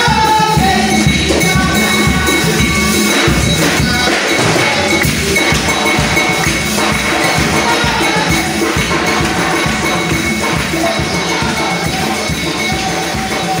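Worship music with a steady tambourine and drum beat, with a voice singing over it near the start.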